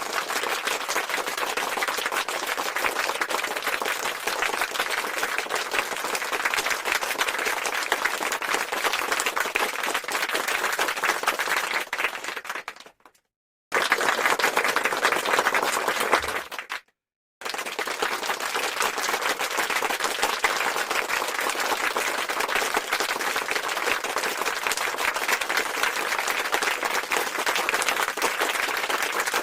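Crowd applause, a dense patter of many hands clapping. It comes as three separate recordings cut together, with a sudden silent gap about 13 seconds in and another about 17 seconds in.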